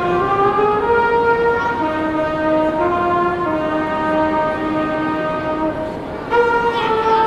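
Brass ensemble led by trumpets playing held chords of a Christmas piece, the notes changing every second or so, with a strong new entry near the end.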